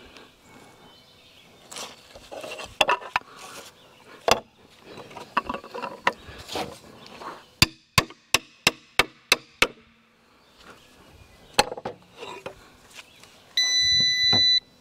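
Hatchet striking a walnut log, first scattered knocks, then a quick run of about eight sharp taps in two seconds. Near the end an electronic beep sounds steadily for about a second.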